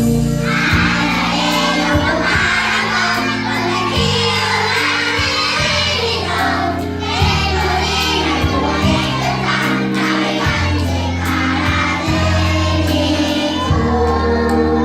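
A group of young children singing together to a recorded backing track with a steady bass line.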